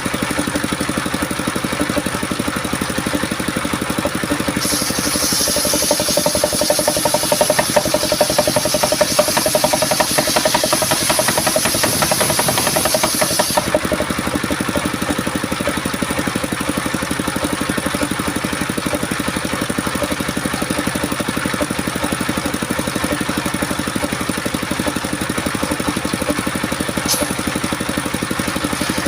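Homemade circular sawmill running steadily with a pulsing drive drone. From about five to fourteen seconds in, the blade cuts through coconut timber, adding a high hiss over the drone.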